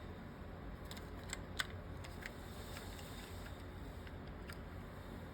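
A few light plastic clicks and taps from handling the old master window switch unit in the door panel, the sharpest about a second and a half in, over a low steady hum.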